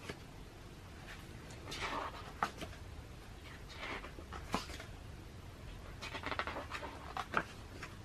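Pages of a large photobook being turned by hand: several paper swishes, a few with a sharp snap as a stiff page flips over.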